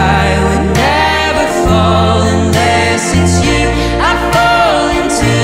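Background music: a song with steady bass notes and a singing voice whose melody glides up and down.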